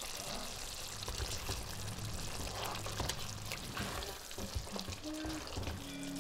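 Thick mutton curry simmering in a pot, bubbling and sizzling with small pops, and a spatula stirring through it near the end.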